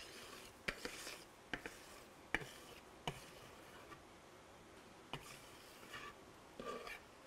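Wire whisk scraping cake batter out of a bowl as it is poured into a tube pan: faint soft scrapes with a handful of light clicks spread through.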